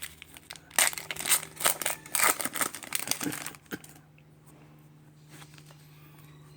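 Foil Pokémon booster pack wrapper crinkling and rustling as it is opened and handled by hand, stopping about four seconds in, leaving a faint steady hum.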